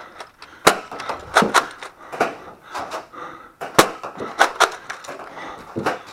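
A string of sharp cracks and knocks, about eight or nine spread unevenly, with the two loudest about a second in and near the middle: Nerf Rival blasters firing and their foam balls smacking hard surfaces such as walls and doors.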